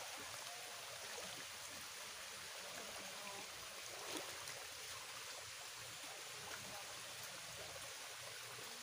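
A small forest stream running steadily over rocks, heard as a faint, even rushing hiss, with one brief tap about four seconds in.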